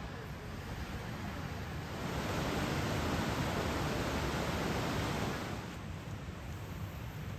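Strong wind gusting: a steady rushing noise that swells louder about two seconds in and dies back down about three seconds later.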